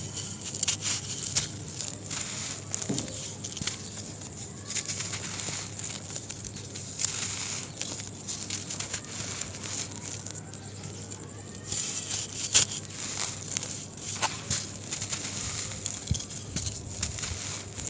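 Hands squeezing and crumbling a dry lump of sand-and-cement mix: gritty crunching and crackling in bursts, with short quieter pauses between.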